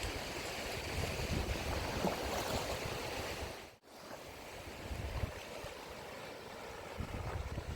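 Small waves washing on the shore, with wind buffeting the microphone in low gusts. The sound cuts out for a moment about halfway through.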